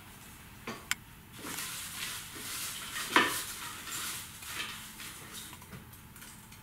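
Folded paper lots rustling as a hand stirs through them in a bowl, with a few sharp clicks; the loudest click comes about three seconds in.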